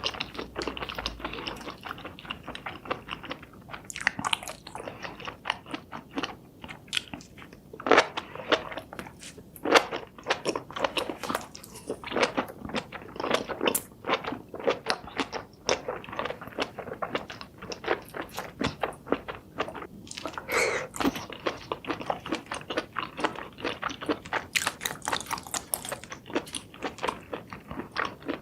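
Close-miked chewing and biting of cooked seafood: a steady run of quick crunching clicks and mouth sounds, with a few sharper bites now and then.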